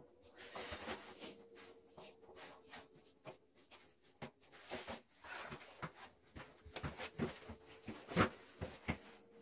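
Hands pulling on and fastening leather work boots: irregular rustling, tugging and small scraping clicks of laces, leather and clothing, with a sharper knock about eight seconds in. A faint steady hum sits underneath.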